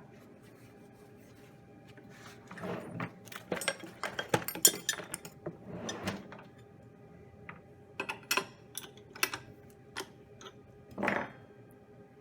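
Metal tools clinking and clicking in a quick irregular series while a CNC router bit is swapped by hand, then a few more spaced clinks, over a faint steady hum.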